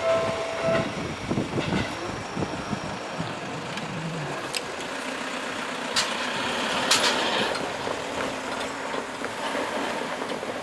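Japanese railway level-crossing warning bell ringing in a repeated electronic tone, then falling silent about a second in. A steady rumble of passing vehicles follows, with a few sharp clicks.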